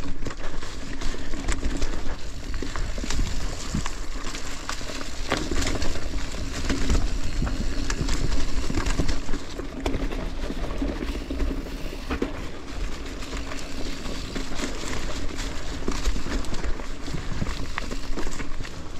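Mountain bike being ridden down a rough trail covered in fallen leaves: a continuous crunching, crackling rush of tyres through the leaves, with many sharp clicks and knocks as the bike rattles over the rough ground.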